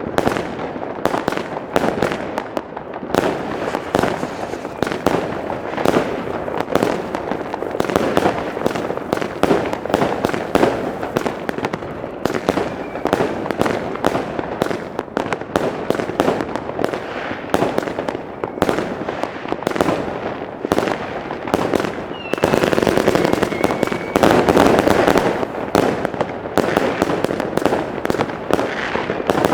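Fireworks going off continuously: a dense, rapid run of bangs and crackles with no pauses, louder for a few seconds about three-quarters of the way through, where a brief whistle is also heard.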